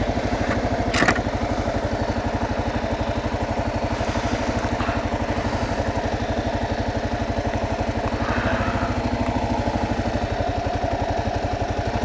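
2009 Kawasaki KLR 650's single-cylinder engine idling steadily with an even pulse while the bike stands at a red light. There is a brief click about a second in.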